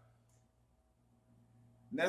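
Quiet room tone with a faint, low, steady hum; a man starts speaking again right at the end.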